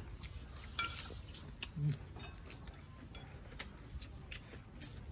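Quiet eating at a table: a spoon clinking against a plate and scattered small clicks of chewing, with a short low hum about two seconds in.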